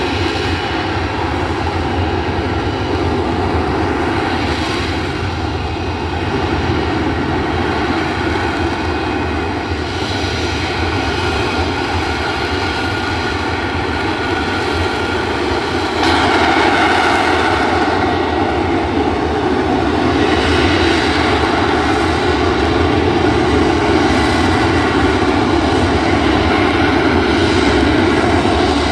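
F-35B Lightning II hovering: its jet engine and downward-pointed exhaust nozzle, with the lift fan, run as loud steady jet noise carrying several steady whining tones. The sound steps up in loudness about halfway through and stays louder.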